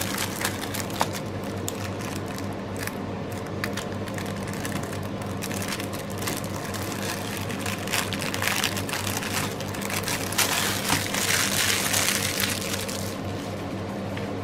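Clear plastic sleeve crinkling and rustling as a rolled diamond-painting canvas is worked out of it, with many small crackles that grow busier about eight seconds in.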